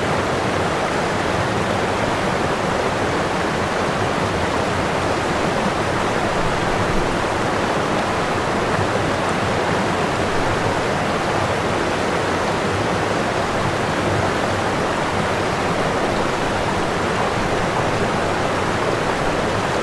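Waterfall: a steady, loud, even rush of falling water.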